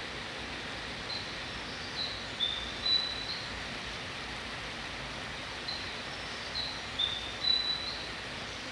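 A looped station sound signal: a short phrase of high, chirp-like notes plays twice, about four and a half seconds apart, over a steady hiss of platform noise.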